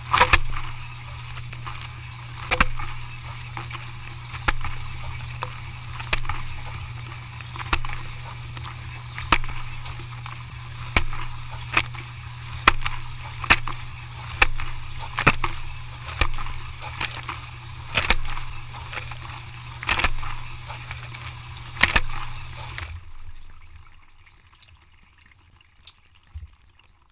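Sharp clacks every second or two, like dishes being handled, over water noise and a steady low machine hum; the hum and the clatter stop about 23 seconds in, leaving it much quieter.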